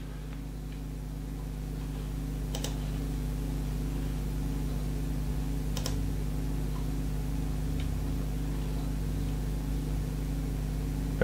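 A few separate computer mouse clicks, three or four spaced a couple of seconds apart, over a steady low hum.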